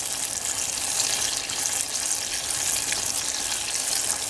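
Butter and brown sugar sizzling steadily in a pan as they melt together into toffee, stirred with a silicone spatula.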